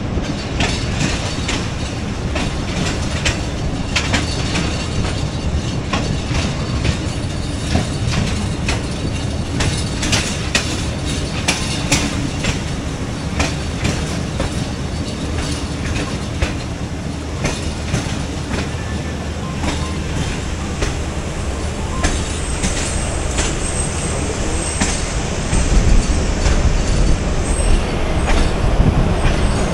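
Passenger train running at speed, its wheels clattering over the rail joints with a steady rumble and many sharp clicks. About two-thirds of the way in a thin high wheel squeal joins, and near the end the rumble grows louder.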